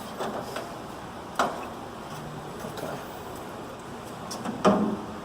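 Two sharp knocks about three seconds apart, the second louder, over a steady low background noise.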